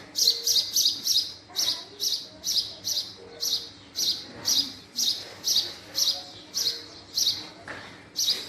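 Male house sparrow chirping over and over: a quick run of four chirps, then a steady series of about two chirps a second.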